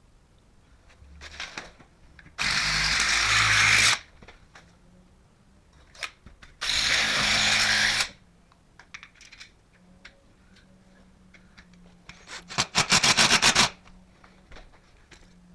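Cordless power drill running in two short bursts of about a second and a half each, then a rapid pulsing burst near the end, as a blocker plate is fixed to an aluminium door frame around a mortise lock; small tool clicks between the bursts.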